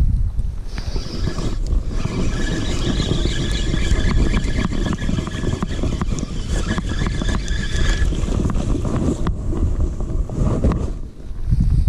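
Spinning reel being cranked, its gears giving a steady whir with fine clicking for several seconds before stopping, over a heavy low rumble.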